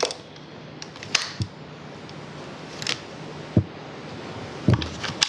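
A handful of separate light clicks and knocks over a faint steady hum, as switches and parts are worked on a motorcycle's electrical system while testing it after a blown ignition fuse was replaced. The electrics give no response.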